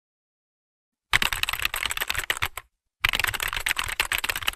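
Rapid keyboard typing sound effect: a fast run of clicking keystrokes begins about a second in, breaks off briefly just past the halfway point, then carries on.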